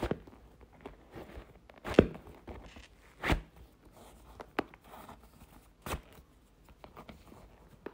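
Handling noise of shoes being put on: a few scattered thumps and knocks with soft rustling between them, the loudest about two seconds in.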